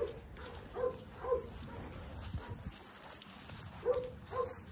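A dog barking: five short, sharp barks, three in quick succession at the start and two more about four seconds in.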